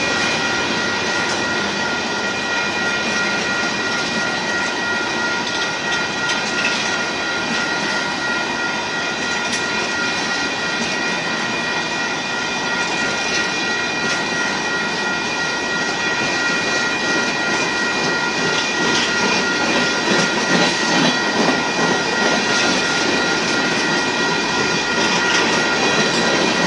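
Union Pacific merchandise freight train of boxcars rolling past: a steady clatter and rumble of car wheels on the rails, with steady high ringing tones held over it throughout.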